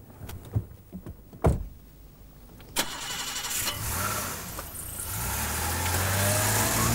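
A car door shuts with a knock, then a BMW 733i's 3.2-litre straight-six starts about three seconds in and runs, getting louder over the last few seconds.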